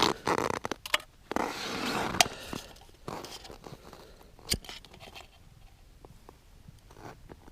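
Crunching and scraping with a few sharp clicks over the first three seconds, then fainter scattered ticks.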